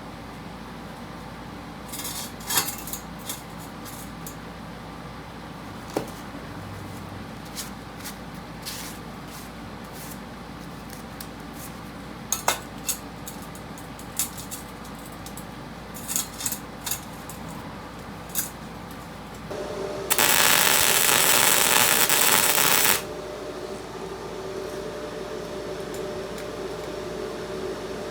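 Scattered light metallic clinks and taps of steel parts being handled. About twenty seconds in comes a loud, steady hissing crackle lasting about three seconds: the SUZUKID Buddy140 gasless flux-core wire welder running a short bead. A low steady hum begins just before the bead and carries on after it.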